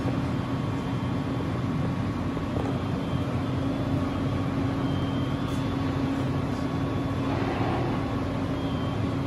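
Schiess 6 DKE 140 vertical turret lathe running under power: a steady mechanical hum with one strong steady pitched tone over it.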